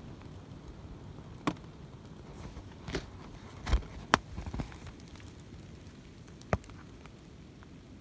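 Pileated woodpecker pecking at a dead tree snag: a handful of sharp, single knocks at irregular intervals, a second or more apart, over a faint steady hiss.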